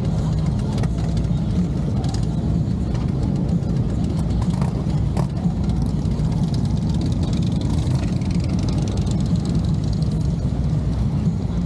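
Motorcycle engines running steadily, a low, even engine sound with no revving.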